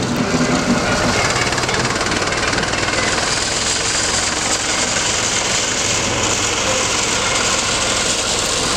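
Small diesel shunting locomotive of the 'Sik' type, fitted with a crane, its engine running with a steady knocking beat as it moves slowly along the track.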